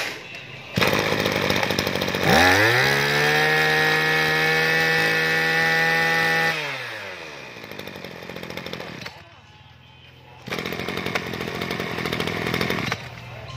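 Freshly serviced Maruyama 23 cc two-stroke brush cutter engines running: one revs up to a high steady whine about two seconds in, holds it for about four seconds, then drops back down. After a short lull an engine runs again near the end.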